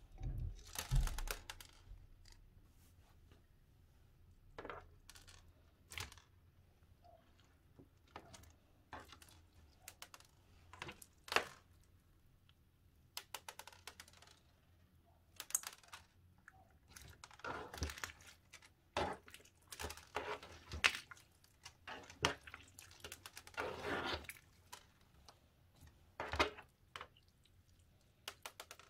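Hands squeezing and stretching a bead-filled slime, Goooze Candy Flossuccino: scattered crunchy clicks and crackles from the blue beads, in irregular clusters, busiest in the second half.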